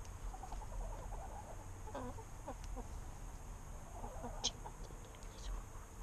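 Backyard hens clucking softly in a run of short, quick notes, with a single sharp click about four and a half seconds in.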